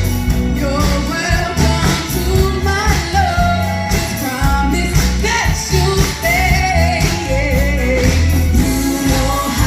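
Two girls singing live over loud band music with a heavy bass beat.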